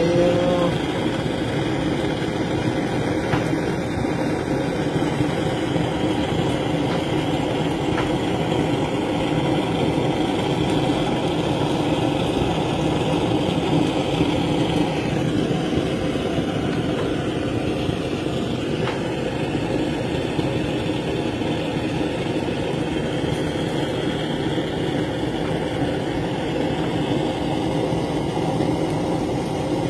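Handheld butane cartridge blowtorch burning with a steady flame, held against the skin of raw fish fillets to sear them.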